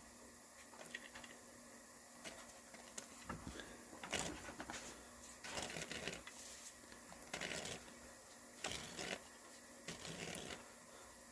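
A C-clamp being screwed down against an old brake pad to push a front brake caliper's piston back into its bore: faint, irregular creaks and clicks every second or two as the clamp turns.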